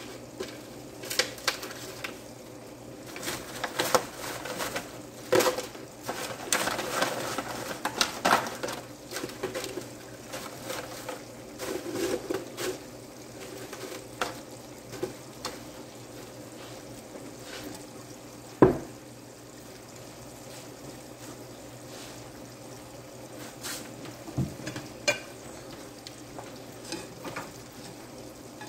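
Homemade French fries frying in hot oil in a stovetop pot, a steady sizzle, under clinks and clatter of a utensil, a pot lid and a plate. The clatter is busiest in the first half, and there is one sharp knock about two-thirds of the way through.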